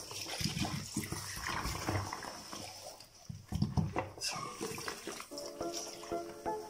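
Tap water running into and over a baby bottle being rinsed of soap, splashing into a basin of suds, with a few knocks from handling. Music comes in near the end.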